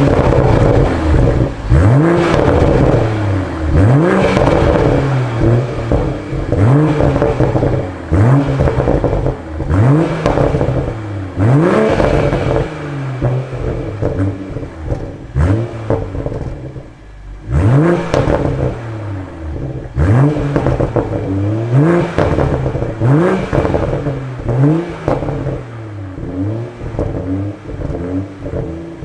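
BMW M340i's B58 turbocharged inline-six with the stock M Sport exhaust, free-revved in short throttle blips about every two seconds. Each rev drops back with pops and crackles from the tailpipes on the overrun.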